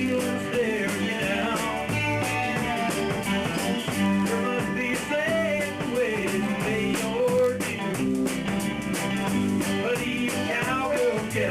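Band playing a song in rehearsal: electric guitars and bass over a drum kit with a steady cymbal beat, in a rock and country style.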